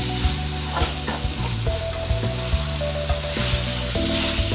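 Chicken pieces sizzling and frying in oil in a metal kadai while a steel spoon stirs and scrapes through them, with short clicks of the spoon on the pan. The pepper chicken dry fry is almost ready.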